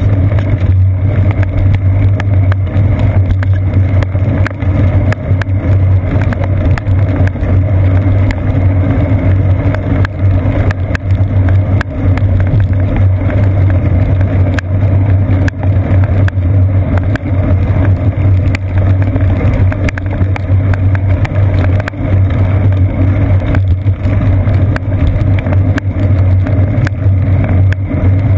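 Steady low drone and rumble of a seat-post-mounted GoPro Hero 2 in its waterproof housing as a bicycle rolls along a wet paved path, with many small clicks and knocks running through it.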